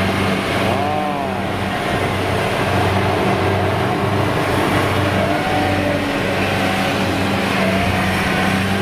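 Kubota DC-70G rice combine harvester's diesel engine running steadily as the tracked machine harvests through soft, muddy ground, with a constant low hum.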